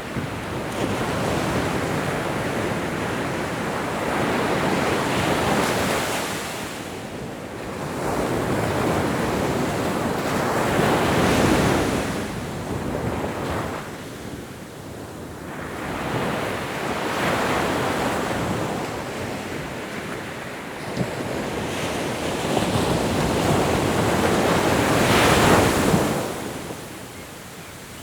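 Ocean surf: waves break and wash in one after another, each surge of rushing water building and falling away about every six seconds. The loudest wave comes near the end.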